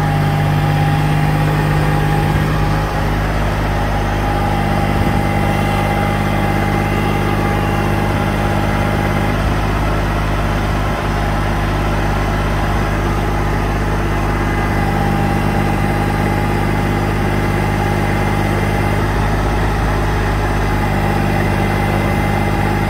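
Kubota tractor's diesel engine running steadily at idle, a constant low hum with a thin steady tone above it.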